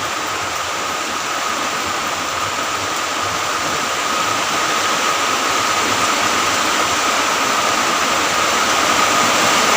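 Heavy rain pouring down, a steady hiss that grows gradually louder as the downpour strengthens.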